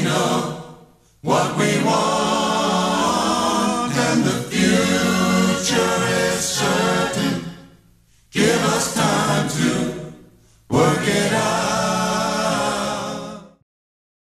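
Vocal music with several voices singing in four phrases separated by brief pauses; it cuts off suddenly near the end.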